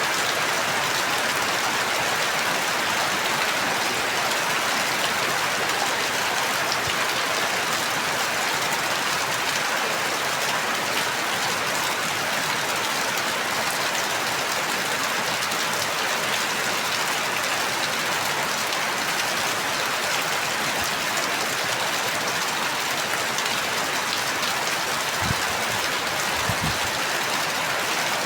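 Steady rain falling and pattering on a surface, an even hiss with no let-up, with a few faint low thumps near the end.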